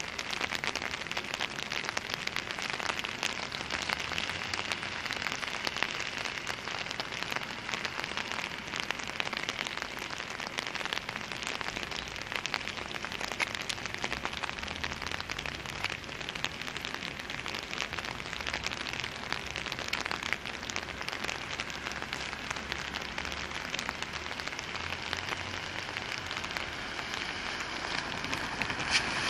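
Steady rain falling, with many small drop hits close by.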